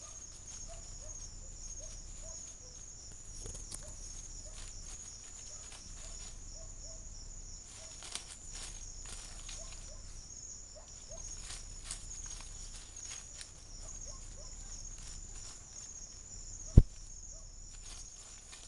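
Steady high-pitched insect chorus at night, with crackling rustles in leaves and undergrowth, heaviest from about seven to twelve seconds in, as an animal moves and forages close by. A single sharp click near the end is the loudest sound.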